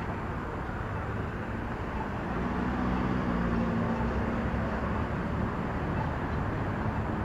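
City street traffic: a steady low rumble of car engines and tyres, with one vehicle's engine hum growing louder about two and a half seconds in.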